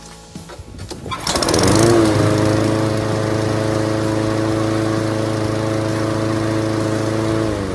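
Briggs & Stratton push-mower engine starting about a second in, fired on a shot of carb and choke cleaner sprayed into the carburetor throat. It revs up and then runs steadily, and slows near the end.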